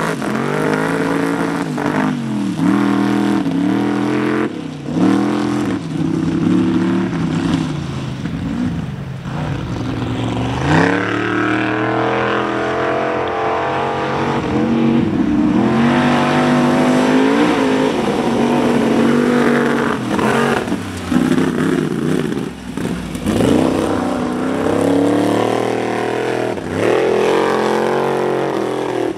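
Formula Offroad buggy's engine revving hard on a steep dirt hill climb, its pitch rising and falling again and again as the throttle is worked, with a steadier high-rev stretch about halfway through.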